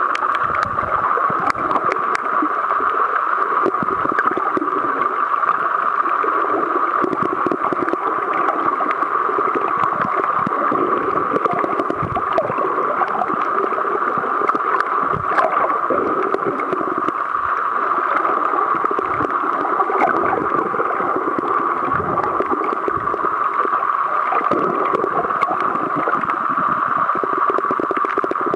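Underwater sound picked up through a camera's waterproof housing: a steady rushing noise with gurgling water movement and scattered faint clicks.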